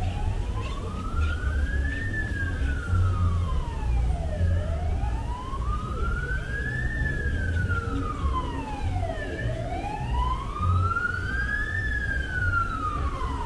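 An emergency vehicle siren wailing, its pitch slowly rising and falling, about once every five seconds, over a low rumble of street noise.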